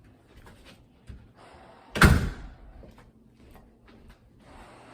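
A single loud slam about two seconds in, followed by a short ring, with quieter knocks and rustling around it.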